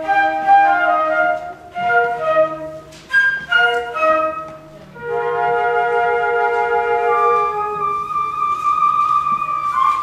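Flute quartet playing: a run of short detached notes for about five seconds, then a held chord that thins to one high sustained note, which stops near the end.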